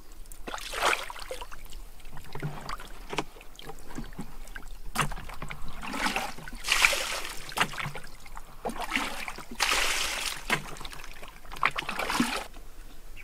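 Fish thrashing in shallow muddy water, splashing in repeated short bursts, with the longest and loudest bursts in the middle and near the end.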